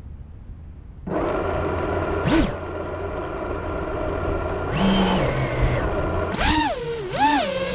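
FPV quadcopter's electric motors spinning up suddenly about a second in and holding a steady whine of several tones. From about six seconds in the whine swoops up and down in pitch with throttle changes as the quad takes off.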